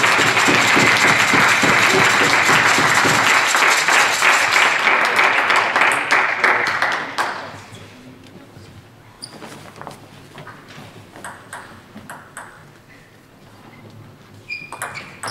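Spectators applauding for about seven seconds, fading out. Then a table tennis rally: the ball clicks sharply off the bats and the table.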